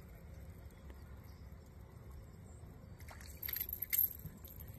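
Fishing reel being cranked against a hooked channel catfish: a run of sharp clicks and ticks starting about three seconds in, loudest near the end, over a low steady rumble.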